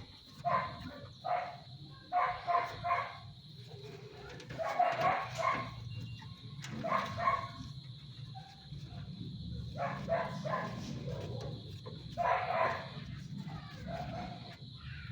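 An animal calling in short bursts, about ten times at irregular gaps of a second or two, over a low steady hum.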